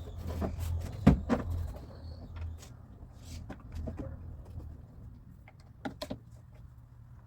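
Knocks and clicks of hands and tools working on a car door and its latch hardware. One sharp knock about a second in is followed closely by another, then lighter scattered taps and clicks.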